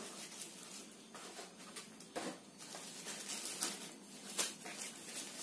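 Cardboard box and soft packaging wrap being handled as a projector is lifted out: scattered light scrapes, rustles and taps, loudest about two seconds in and again a little after four seconds.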